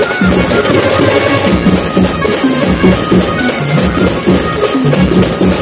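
Loud live Marathi band music from a truck-mounted keyboard and drums, played through a big sound system. It has a steady beat and a repeating bass line.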